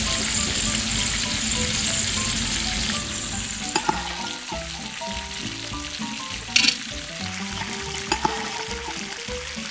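Small batch of tortilla-chip triangles deep-frying in hot oil in a small steel wok: a steady sizzle, louder for the first three seconds and then softer. A few light clinks come through, the sharpest about six and a half seconds in.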